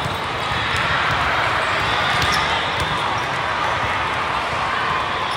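Steady din of volleyball play in a large hall: volleyballs being struck and bouncing on the courts, over a hubbub of many voices.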